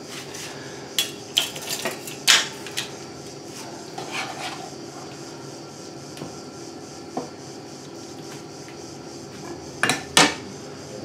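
Wooden spatula knocking and scraping in a pan as creamy tortellini is scooped out and into a ceramic bowl. Scattered clicks and clunks sound over a steady low hum, the loudest about two seconds in and near the end.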